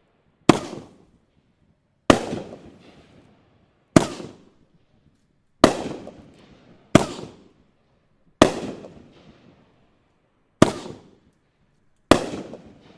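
Happy Family consumer fireworks going off: eight sharp bangs spaced about one and a half to two seconds apart, each trailing off in an echo.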